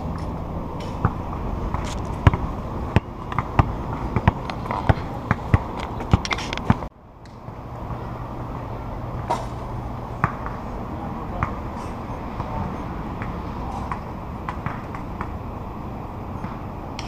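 Outdoor ambience: steady background noise with a low hum. Scattered sharp taps and knocks come in the first seven seconds, then the noise runs on steadier with only an occasional faint tick.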